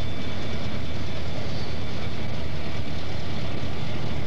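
Burlington Northern EMD F-unit diesel locomotives running as they move through the yard, a steady low engine rumble.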